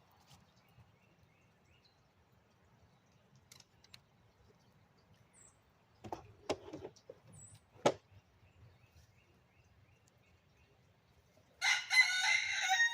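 A rooster crowing once near the end, a loud call of about two seconds. Before it, a few sharp knocks.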